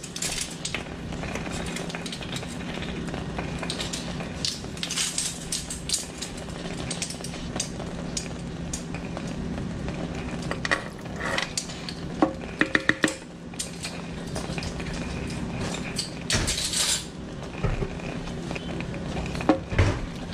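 Silicone spatula stirring thick, syrupy apple pie filling in a pan, with scattered scrapes and knocks against the pan, including a quick run of clicks about halfway through.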